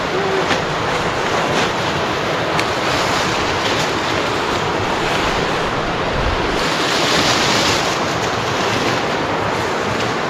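Steady rush of falling creek water.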